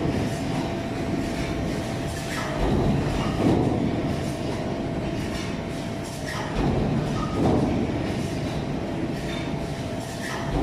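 Stamping press running a multi-station progressive deep-drawing die. It makes a steady mechanical noise that swells with each press stroke, about once every four seconds.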